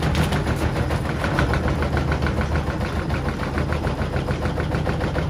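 Hoover Dynamic Next 13 kg washer-dryer drum spinning with its door open: a steady low rumble with a rapid, even clatter of about five beats a second.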